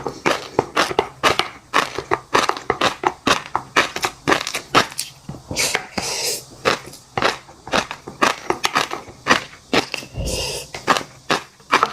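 Close-miked eating sounds: fish roe and crunchy seafood being chewed, giving a quick run of crisp crunches and clicks, several a second, with a couple of longer wetter smears.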